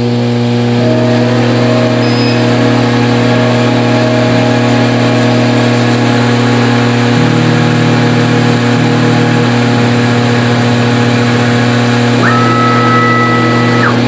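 Monport 60 W CO2 laser engraver running just after power-on while its gantry homes to the limit switches: a loud, steady electric hum. An extra lower tone joins in about seven seconds in, and a faint higher tone sounds near the end.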